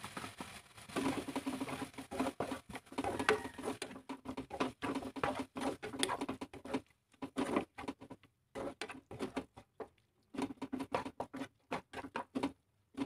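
Black spatula stirring and scraping minced chicken and sauce around a nonstick frying pan. It makes a quick, irregular run of scrapes and taps, with a few short pauses.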